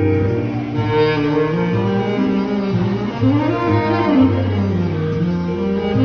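Selmer R54 tenor saxophone with a Vandoren TL4 mouthpiece playing a legato ballad melody, its notes sliding up and down, over an accompaniment with a steady bass line underneath.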